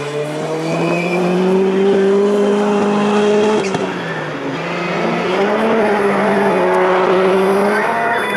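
Autocross touring car's engine running hard at high revs, its pitch rising at the start, dipping briefly about four seconds in, then climbing back and holding high.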